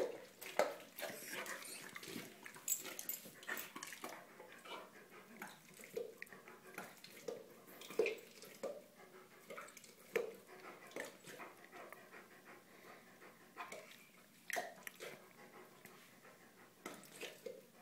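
Dog gulping and licking its lips over and over: irregular wet smacks and swallows, about one every second or so, in an episode of compulsive gulping that a specialist suspects may come from mini-seizures.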